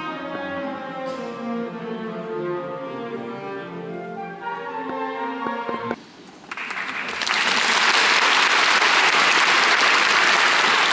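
Symphony orchestra playing, strings to the fore in long held notes, breaking off abruptly about six seconds in. After a brief lull, loud audience applause that rises within a second and holds steady.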